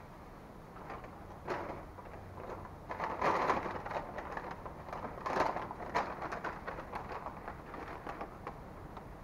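Brown paper bag and paper food wrappers rustling and crinkling as the wrappers are crumpled and stuffed into the bag, in irregular crackly bursts, the loudest about three and five seconds in.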